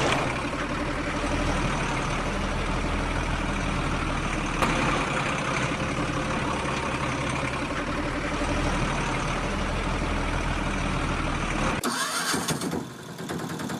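Truck diesel engine idling steadily; being a toy scene, it is most likely a dubbed sound effect. It cuts off abruptly about twelve seconds in, and a fast clicking rattle takes over.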